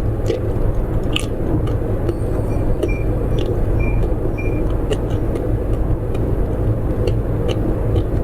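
Someone biting and chewing snacks, heard as scattered sharp clicks over a loud, steady low rumble. A few short high beeps sound between about two and a half and four and a half seconds in.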